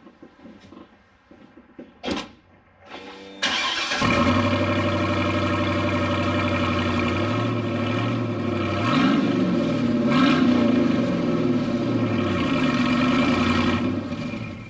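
2012 GMC truck's 6.0L Vortec gasoline V8 starting about three seconds in and running loud with the exhaust open at a flange, the plugged catalytic converter taken off. It is revved up and down a few times near the middle, then shut off just before the end.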